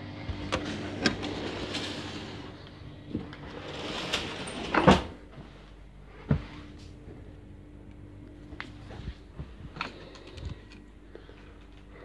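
A door being opened and shut, with the loudest knock about five seconds in, amid rustling and a few smaller clicks, over a steady low hum.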